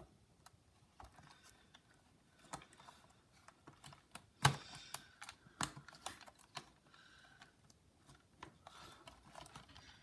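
Scattered light clicks and taps of plastic laptop parts and cables being handled and fitted, the loudest about four and a half seconds in.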